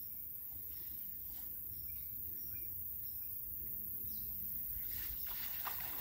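Water sloshing and splashing around someone wading in floodwater while casting a net, growing louder in the last second. Faint bird chirps over a low steady rumble.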